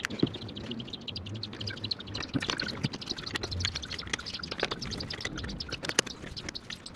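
Wheel bolts being run into a car's alloy wheel with a ratchet wrench: rapid clicking of the ratchet with metal clinks, and a sharper knock about six seconds in.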